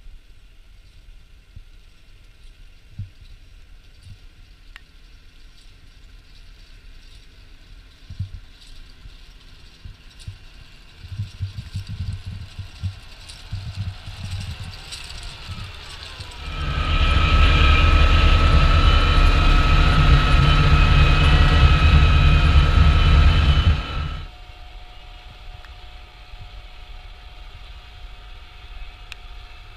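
Timberjack log skidder's diesel engine working across a field: faint and uneven at first, then loud and steady with a whine for about eight seconds from just past the middle, cutting off abruptly back to a faint, distant engine.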